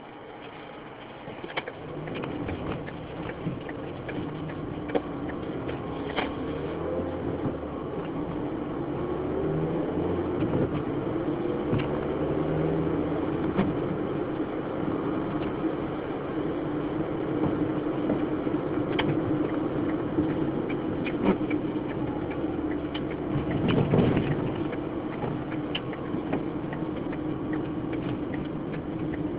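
Car driving, heard from inside the cabin: engine and road noise that swells about two seconds in and rises in pitch as the car speeds up, with scattered sharp ticks, the windscreen wiper sweeping, and a louder thud late on.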